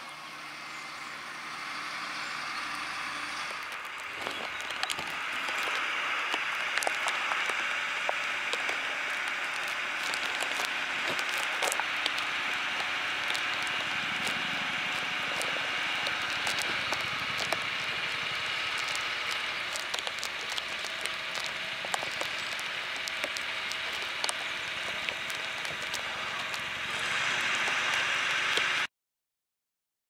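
John Deere 8RX 410 tracked tractor working under load with an eight-furrow plough, growing louder as it comes closer. Rain patters on and around the microphone, with many sharp drop ticks. The sound cuts off abruptly near the end.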